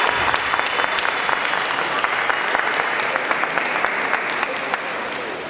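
Audience applauding, many hands clapping at once, easing off a little near the end.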